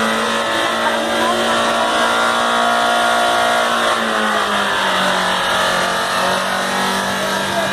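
Maruti Swift Dzire's turbo-diesel engine in runaway, running at a steady high speed with no let-up and a slight drop in pitch about five seconds in. A turbocharger failure is behind it: the engine is feeding on oil it cannot be shut off from.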